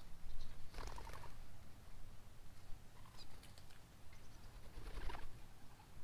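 Birds bathing at a backyard birdbath, with two short rustling bursts of fluttering in the water about four seconds apart. A few faint high chirps come in between.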